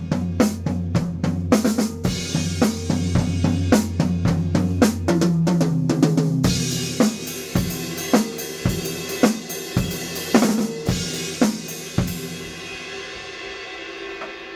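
Red Yamaha five-piece drum kit being played: a busy groove of bass drum, snare, toms, hi-hat and cymbals, which thins about six seconds in to single hits about two a second. The last hit comes near the end, and the cymbals ring out after it.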